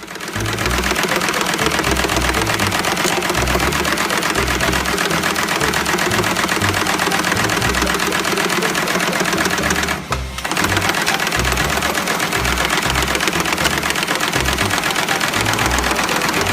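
Fast, continuous mechanical clatter of a factory machine running, dropping out briefly about ten seconds in.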